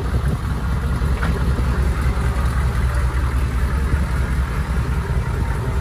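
M998 Humvee's V8 diesel engine running steadily at low revs, a deep even rumble.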